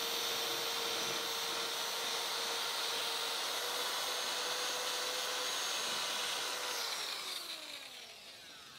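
Drill spinning a 3M Roloc abrasive wheel against a plastic fuel tank, a steady whine over a rubbing scrape as the tank surface is sanded flat around the inlet check valve opening. About seven seconds in the drill is let go and its pitch falls as it winds down.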